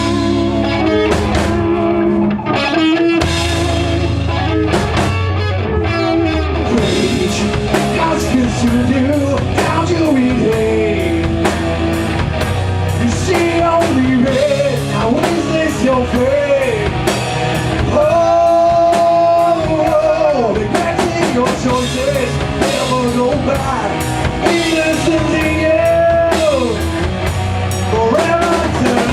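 Rock band playing live: drum kit and electric guitars, with a wavering melodic lead line over a steady bass.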